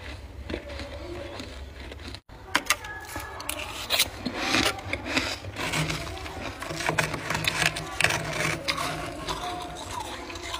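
A metal spoon scraping and scooping powdery frost in a freezer, with a dense run of crackling, crunchy scrapes. The sound cuts out briefly about two seconds in.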